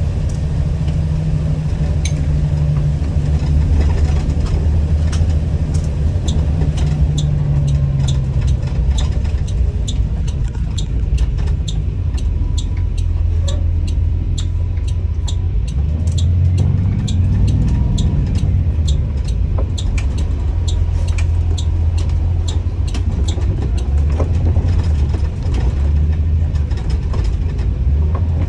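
School bus engine running with a steady low rumble that swells briefly about two-thirds of the way through. Over it runs a fast, regular high ticking, about three a second, through the middle.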